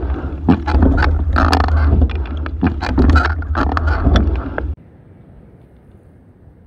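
Rowing scull under way, heard from a camera on the hull: heavy wind rumble on the microphone, with water splashing and many sharp knocks from the oars and rigging. About four and a half seconds in it cuts off abruptly to a faint steady hiss.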